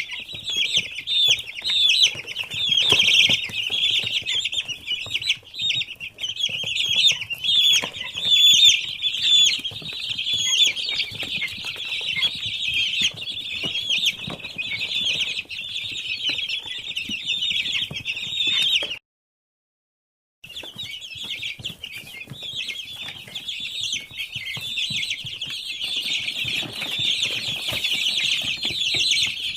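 A large flock of week-old poultry chicks peeping together in a dense, continuous high-pitched chorus. It breaks off for about a second and a half about two-thirds of the way through, then carries on.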